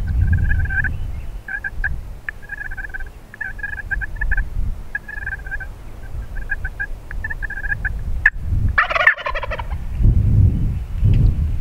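A wild turkey jake, a Rio Grande bird, gobbles once, loud and at close range, about nine seconds in, after several seconds of short, repeated calls. A low rumble of wind on the microphone runs under it.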